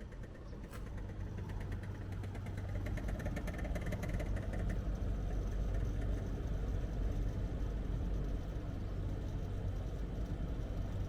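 Split air conditioner outdoor unit running with a steady low hum that builds over the first few seconds, with rapid ticking in the first half: a loud abnormal noise from the fan motor's failed bearing.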